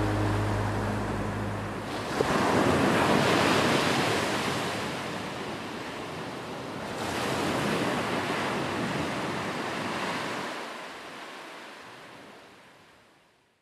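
Ocean surf: waves breaking and washing in two long swells, then fading out near the end. A low held note stops about two seconds in.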